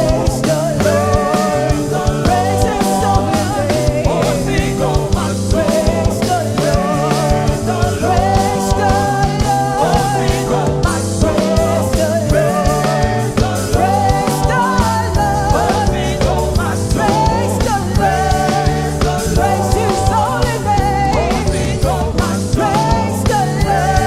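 Live worship band music with singing over drums, bass and guitar at a steady beat.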